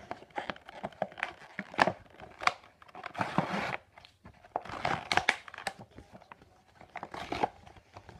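A Disney Infinity figure's plastic-and-cardboard toy packaging being crinkled and torn open by hand, in irregular bursts of rustling and tearing.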